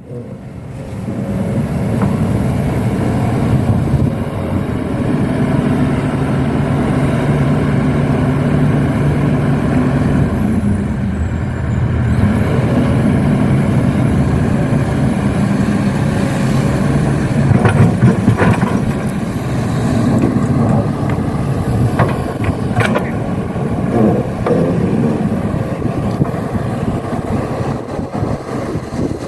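Truck engine running steadily with a low drone, with a few sharp knocks in the second half.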